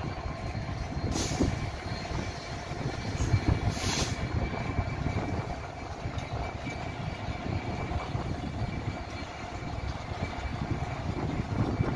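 Class 66 diesel-electric freight locomotives, with EMD two-stroke V12 engines, running as they haul a freight train past at walking pace: a steady low rumble with a thin steady whine over it. Two short hisses come in the first four seconds.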